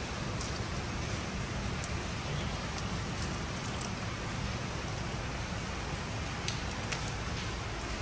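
Rain and hail falling steadily on concrete pavement during a hailstorm, with a few scattered sharp ticks.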